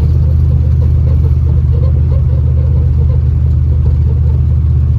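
Steady low engine and road rumble heard inside the cabin of an off-road 4x4 driving on a snow-covered road.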